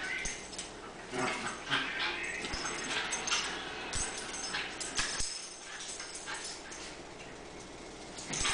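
Two Cairn terriers play-fighting, making small-dog play vocalizations in irregular bursts, with a few sharp clicks scattered through.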